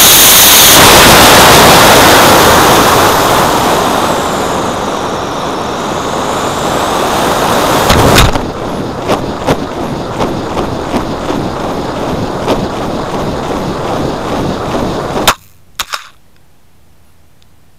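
D12-7 black-powder model rocket motor burning with a loud roaring hiss, heard from a camera taped to the rocket's fin, easing into rushing wind noise as the rocket coasts. About 8 seconds in the ejection charge fires with a sharp bang, and rushing wind and rattling clicks follow as the camera mount tears loose at parachute deployment. The noise cuts off suddenly about 15 seconds in, followed by two knocks.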